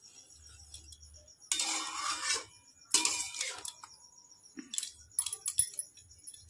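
A metal spoon scraping against the side of a large aluminium pot of chicken curry as it is stirred: two rough strokes, then a few light clinks.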